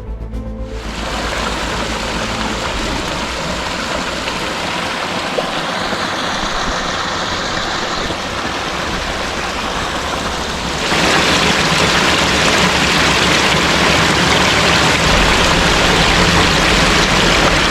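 Rushing water, a steady hiss-like noise that steps louder about eleven seconds in.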